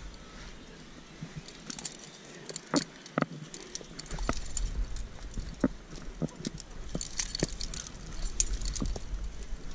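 Climbing hardware on a harness, carabiners and quickdraws, clinking and jingling, with scattered light knocks and scrapes as a climber moves up limestone rock. The metal clinks come thickest about seven to eight and a half seconds in.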